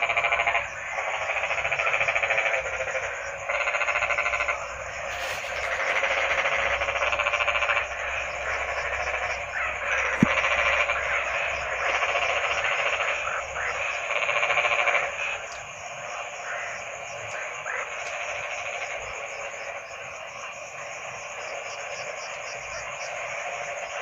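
A chorus of many frogs croaking, in rapid pulsing calls that swell in loud waves a second or two long and thin out and quieten over the last third. A single sharp click comes about ten seconds in.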